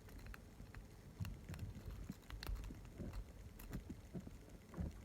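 Small, irregular metallic clicks and light scraping from a lock pick working the pins of a padlock under a tension wrench, with soft handling noise of the lock in the hand. The clicks are pins, including a spool security pin, being set.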